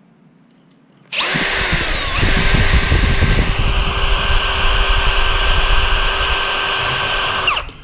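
Cordless drill driving a small bit through a bolt held in a drilling jig, making a safety-wire hole. It starts about a second in, its whine dips briefly as the bit bites, then runs steadily until it stops just before the end.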